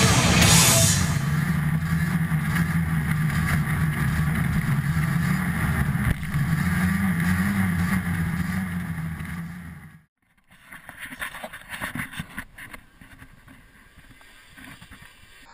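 Snowmobile engine running under way, heard close up from a camera on its hood, its pitch wavering and lifting a little before it dies away about two-thirds through. After a short break, fainter uneven engine and wind noise follow.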